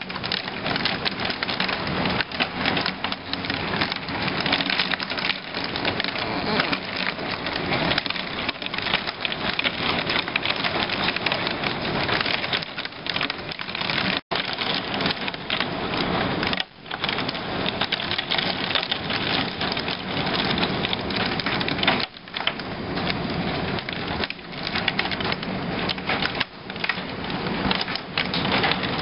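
Torrential downpour: a dense, steady rush of heavy rain with many sharp crackling hits, cutting out for a moment about halfway through.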